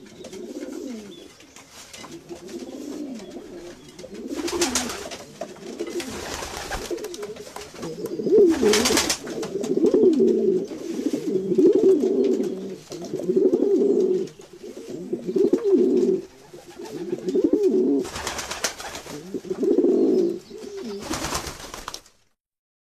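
Domestic pigeons cooing: a run of low, warbling coo phrases repeating about every two seconds, with a few short noisy rustles between them. The sound cuts to silence about a second before the end.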